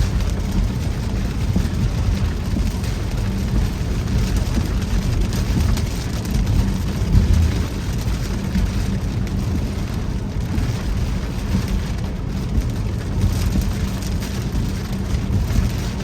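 Truck driving through heavy rain, heard from inside the cab: a steady low rumble of tyres on the wet road under the hiss of rain on the truck.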